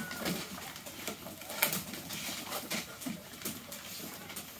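Litter of boxer puppies scuffling on a wooden deck: claws clicking and paws pattering on the boards, with short squeaks and grunts from the pups.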